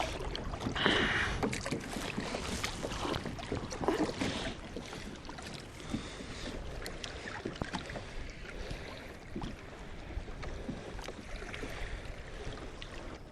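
Sea water lapping and slapping against a drifting kayak's hull, with a steady low wind rumble on the microphone and scattered small knocks.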